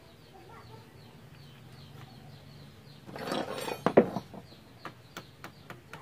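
A chicken squawks loudly about halfway through, ending in a few sharp knocks. Then a hammer starts tapping lightly, about three or four taps a second, fitting a part onto the shaft of a new washing-machine spin-dryer motor.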